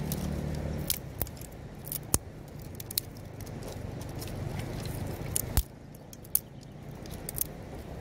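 Dry twigs and sticks clicking and snapping as they are laid by hand onto a stone fire pit: a handful of sharp, irregular cracks, the loudest about five and a half seconds in, over a low steady rumble.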